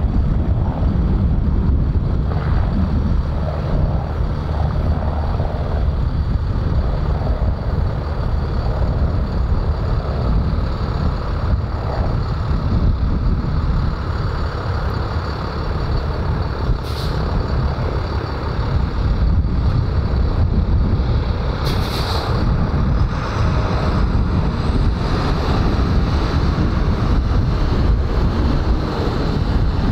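Aircraft engine noise: a steady low rumble, with brief hisses about 17 and 22 seconds in and a thin high whine rising in pitch about 24 seconds in.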